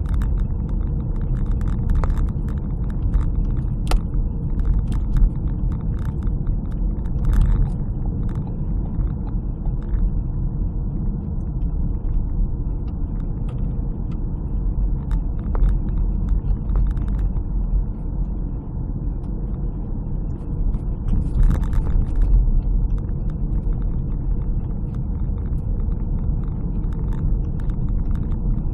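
Steady low rumble of a car driving, heard from inside the cabin: engine and tyres on a snow-covered road. A few short clicks and knocks are scattered through it.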